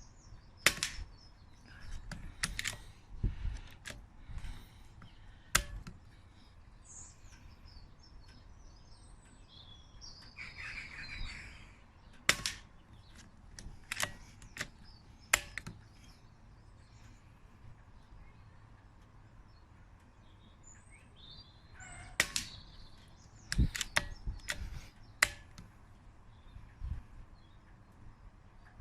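Scattered sharp clicks and knocks, a dozen or more at uneven intervals, the kind made by handling the scope and the camera held to it. Birds call faintly in the background, with the clearest calls near the middle and again about two thirds of the way in.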